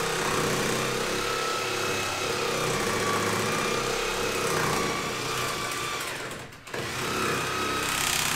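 Electric power saw cutting into the old wooden stringer in a boat hull, running steadily. It briefly stops about six and a half seconds in, then starts again.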